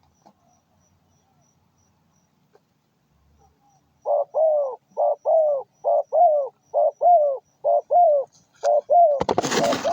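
A dove cooing in a rapid run of short, arched coos in pairs, starting about four seconds in. Near the end loud rustling and scraping breaks in over the last coos.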